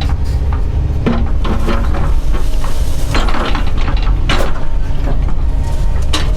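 Doosan DX140 excavator's diesel engine running steadily, with repeated metallic clanks and rattles from the machine's steel parts as it works.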